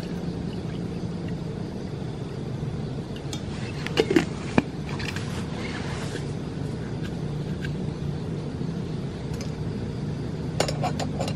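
Water poured from a metal tumbler into a metal camping cup, then a few sharp metal clinks and knocks about four seconds in as the tumbler is handled and set down. Small clicks follow near the end as a spoon is laid down, all over a steady low rumble.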